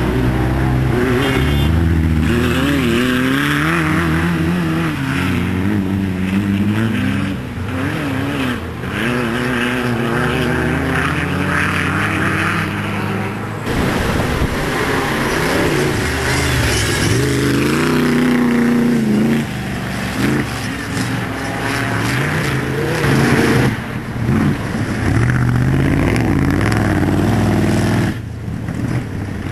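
Off-road racing buggy and car engines revving hard as they race past on a dirt track, the engine pitch repeatedly rising and falling.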